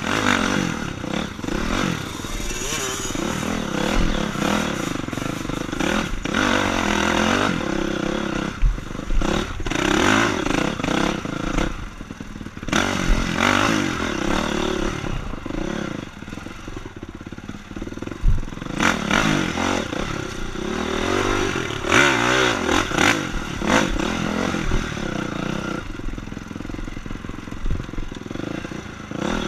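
Honda CRF dirt bike's four-stroke single-cylinder engine revving up and down again and again as the throttle is worked, with sudden knocks and clatter from the bike throughout.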